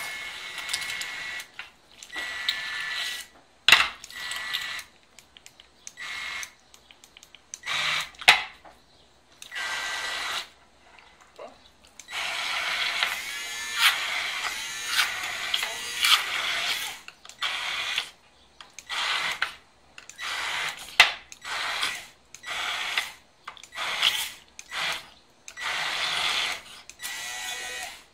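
KitchenAid Pro Line cordless hand blender running at speed 1, switched on and off in short bursts with a longer continuous run in the middle, its blade chopping eggplant escabeche down to a paste. A few sharp knocks sound among the bursts.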